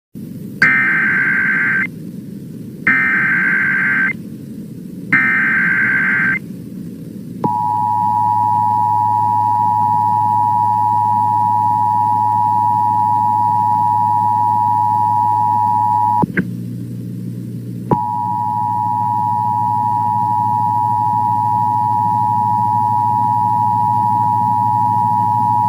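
Emergency Alert System tones for a tornado warning: three short bursts of warbling data-header tone, then the steady two-tone attention signal. The attention signal breaks off briefly about 16 seconds in with a click, then resumes.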